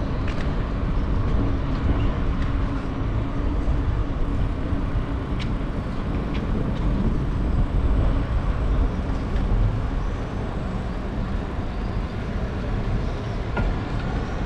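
Steady rumbling noise of a bicycle ride on a paved promenade: wind buffeting the camera's microphone and tyres rolling on the pavement, with a few light clicks and rattles from the bike.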